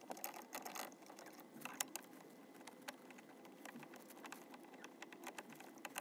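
Faint, irregular light clicks and taps scattered over a low steady hiss.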